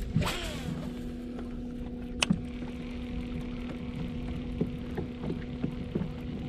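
Electric trolling motor running with a steady hum. A rod cast swishes at the start, and a single sharp click comes about two seconds in.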